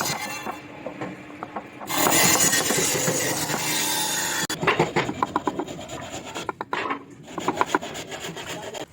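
Wood being worked by hand with a rasp or file: a steadier stretch of rubbing about two seconds in, then quick repeated strokes at about four or five a second.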